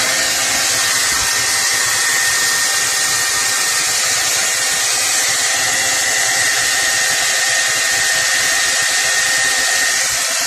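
Hair dryer running steadily, a loud rush of air with a steady whine, used to melt built-up ice in a freezer.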